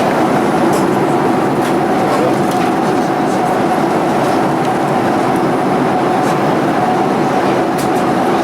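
Cabin noise inside a Boeing 787-8 Dreamliner: a loud, even rush of engines and airflow with a steady hum and faint scattered ticks.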